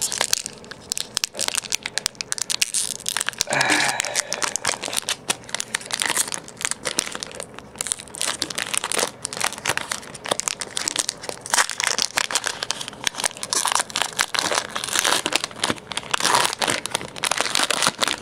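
Foil wrapper of a Pokémon trading card booster pack crinkling and rustling as it is handled and opened, with dense irregular crackles throughout.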